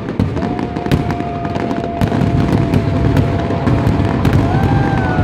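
Fireworks display: dense crackling with many sharp bangs, and a long steady whistle-like tone through the middle.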